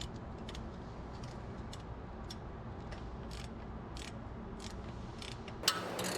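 Ratchet wrench with a 7 mm hex bit clicking in short, irregular ticks while undoing a brake caliper guide bolt, with one sharper clack near the end.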